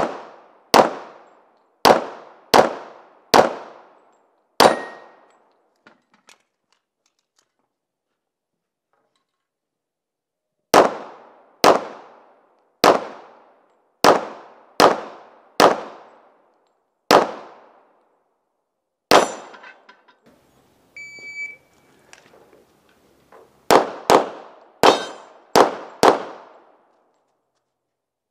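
Pistol shots fired in quick strings, each shot under a second apart: about six, then a pause of some six seconds, about eight more, another pause, and about six more near the end. A brief faint beep sounds in the second pause.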